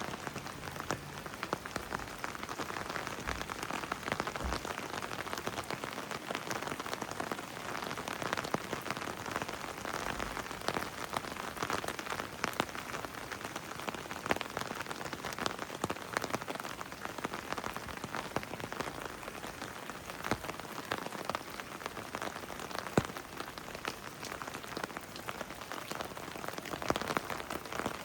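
Heavy rain falling steadily, with many close drops landing as sharp ticks over a dense hiss.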